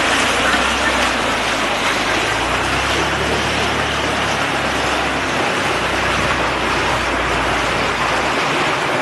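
Loud steady rushing noise with a low steady hum beneath it.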